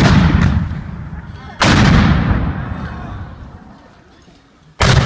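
Black-powder guns firing: a shot right at the start, another about half a second later, a third about a second and a half in, and a fourth near the end. Each is a sudden bang whose echo dies away over a second or two.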